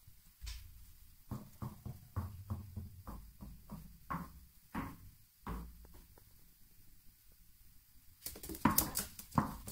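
A tennis ball bouncing down hard stair treads: a run of quick knocks from about a second in, coming closer together. A louder cluster of knocks and clatter near the end.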